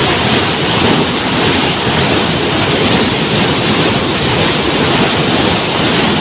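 A river in flash flood after heavy rain, its muddy torrent rushing with a loud, steady noise.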